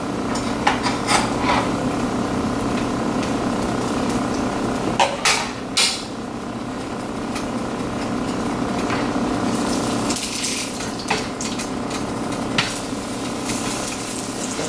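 Kitchen sounds: a pancake frying in a nonstick pan over a steady hum, with scattered clinks of dishes and utensils, a few of them close together about five to six seconds in.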